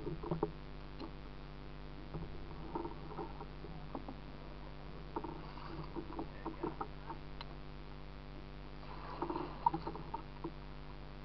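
Kayak on a shallow creek: irregular small paddle splashes and water lapping against the plastic hull, with occasional light knocks, over a steady low background noise.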